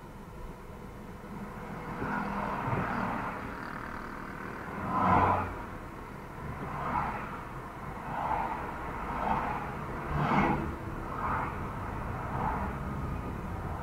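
A car driving through town, heard from inside the cabin: steady engine and road rumble with swells that rise and fall every second or two, the loudest about five and ten seconds in.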